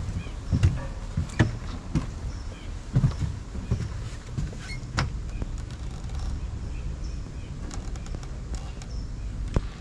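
Irregular knocks and thuds of footsteps on a wooden porch deck over a steady low rumble. The knocks come at uneven gaps, the last one a little before the end.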